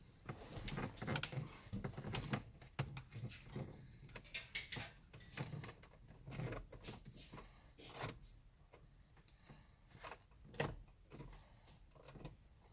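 Faint, irregular clicks, taps and rustles of hand tools and a small bolt being handled while the bolt is threaded in by hand.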